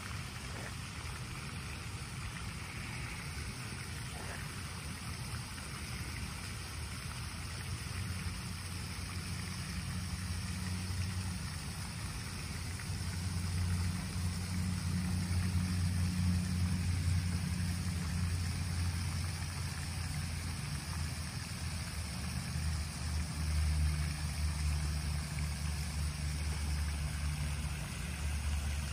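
Pond fountain spraying and splashing in a steady hiss, under a low rumble that grows louder about halfway through.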